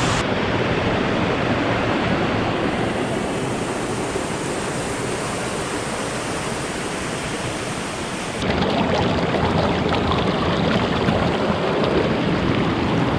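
Rushing river water running steadily over rocks; it gets abruptly louder about eight seconds in.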